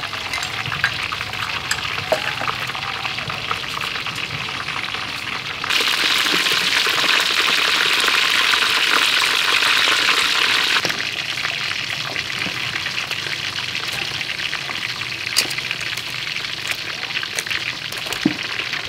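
Battered chicken drumsticks deep-frying in hot oil in a wok: a dense, steady crackling sizzle, louder and brighter from about six to eleven seconds in. A few sharp clicks stand out now and then.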